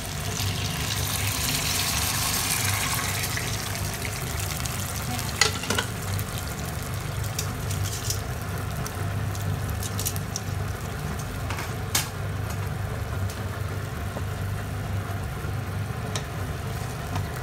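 Chicken-boiling broth poured into a hot pan of fried chicken and garlic. It hisses and sizzles loudest in the first few seconds, then settles into a steady bubbling simmer. A few light clicks and a low steady hum run underneath.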